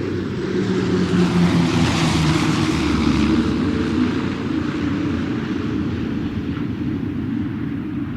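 Airplane in flight: a steady engine drone with a rushing noise that swells over the first few seconds, then slowly fades as it passes.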